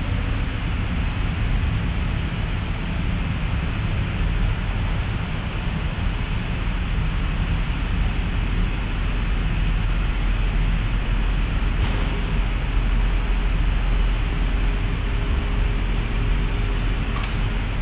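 Steady machine-shop background noise: an even hiss over a low rumble, unchanging throughout.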